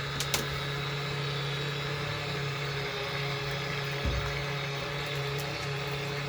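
Small portable washing machine running a wash, its motor giving a steady hum. There are a couple of sharp clicks at the start and a low thump about four seconds in.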